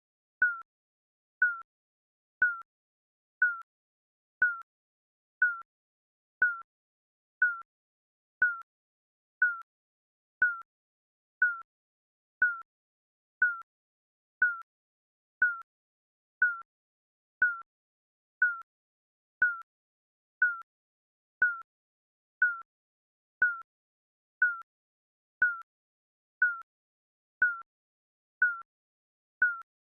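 Digital countdown timer beep: a short, slightly falling tick-like tone, once every second, evenly spaced.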